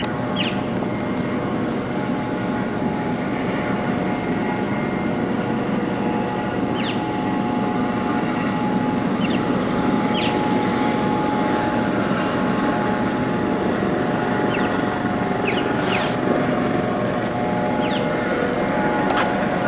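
A steady engine drone with a few constant tones through it, and short high chirps every few seconds.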